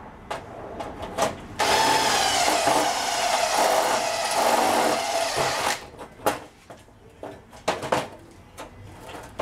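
Cordless drill running for about four seconds, boring out a quarter-inch hole in steel angle iron to the larger size the threaded inserts need, its pitch dropping slightly as it cuts. Then come a few light metal knocks as the angle iron is handled and laid down.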